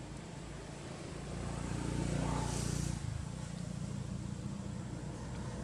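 Low engine rumble of a passing motor vehicle, swelling from about a second in and dropping off sharply about three seconds in, over a steady low outdoor background.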